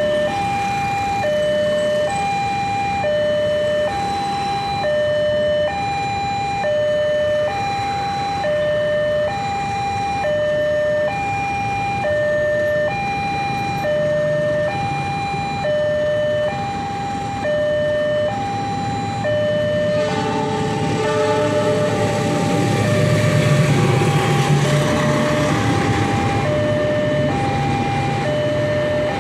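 Railway level crossing warning alarm sounding two electronic tones, a higher and a lower, alternating about once a second. About 20 seconds in, a passenger train arrives and passes over the crossing, its rumble loudest a few seconds later, while the alarm keeps sounding.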